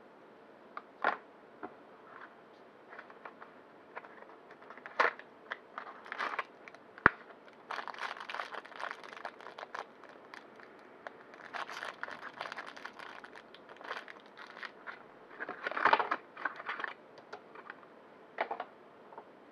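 Clear plastic packaging and paper crinkling in bursts as they are handled, with scattered sharp clicks and taps of small parts being set down on a table; one sharp click about seven seconds in is the loudest single sound.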